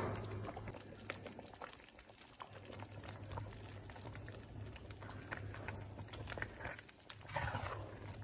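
Pot of thick oha soup simmering, with many small bubbling pops over a steady low hum. It gets louder and busier briefly near the end, where a wooden spoon is in the pot.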